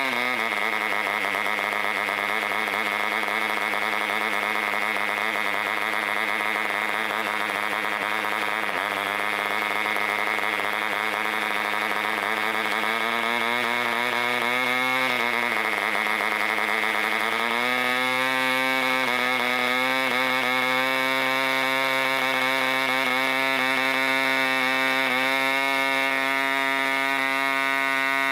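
Mikro 3.5cc model diesel engine running at high speed with its propeller, at around 7,000 to 8,000 rpm. The pitch drops just after the start, sags around 15 seconds and picks back up near 18 seconds as the compression screw on top of the cylinder is adjusted, then holds steady.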